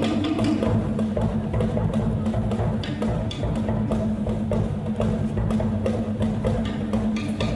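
Percussion music: a quick, busy pattern of sharp knocks and taps over a steady low held note.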